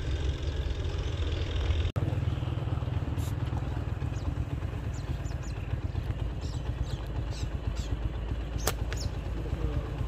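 A slingshot with flat rubber bands fired once near the end, giving a single sharp snap on release, over a steady low rumble.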